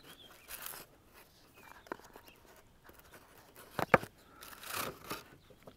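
A rigid watch box being handled and slid out of its sleeve: soft scrapes and rustles, with a sharp click about four seconds in.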